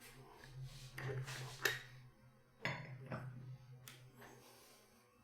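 Several light metallic clinks and knocks from a padlock and pinning tray being handled and set down on a hard surface, over a faint low hum.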